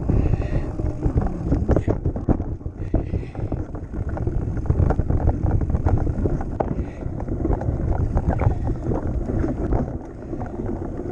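Mountain bike riding fast down a dirt forest trail: wind rumble on the bike-mounted camera's microphone, with tyre noise and the rattle and knocks of the bike over bumps and roots.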